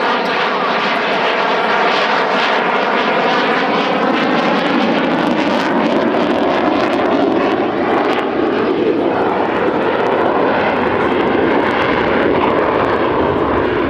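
Dassault Rafale fighter's twin Snecma M88 jet engines, a loud steady noise in flight whose tone shifts slowly as the aircraft moves through its display.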